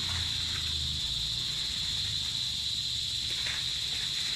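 Insects, crickets among them, chirring steadily in one continuous high-pitched drone, with a few faint rustles of dry banana leaves.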